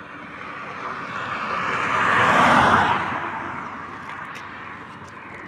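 A road vehicle passing at speed on a concrete highway: its tyre and engine noise swells to a peak about two and a half seconds in, then fades away.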